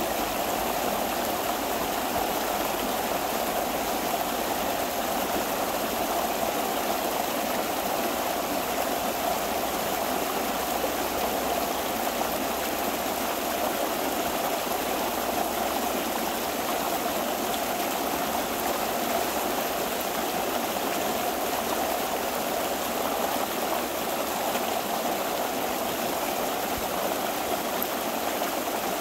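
Pond water rushing steadily through a breach raked open in a beaver dam, the pond draining out.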